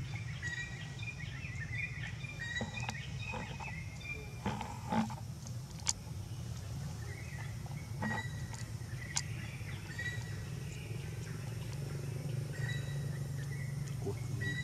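Outdoor ambience: a steady low hum with scattered short, high chirps and a few sharp clicks.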